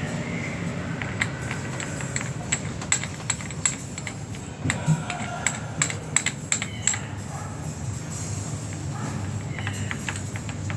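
Irregular light clicks and taps of small hard objects being handled, over steady background music.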